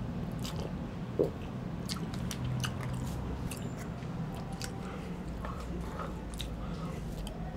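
A person chewing and biting food close to the microphone, with many small wet mouth clicks. A low steady hum sits underneath.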